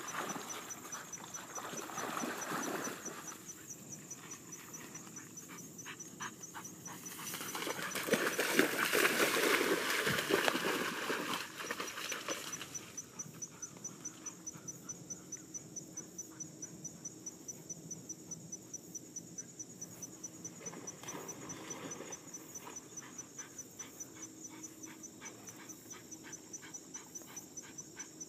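Insects chirping in a steady, fast, even pulse, with a loud stretch of noise from about eight to twelve seconds in.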